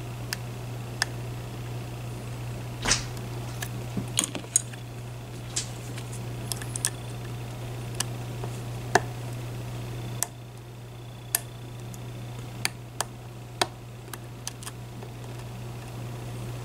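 Irregular small metallic clicks and ticks of a hook pick working the pins inside a Medeco Biaxial lock cylinder, over a steady low hum.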